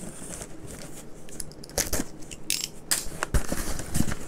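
Cardboard shipping box being handled and pulled open by hand: scattered crunches, scrapes and clicks of cardboard, with a few sharper ones about two and three seconds in.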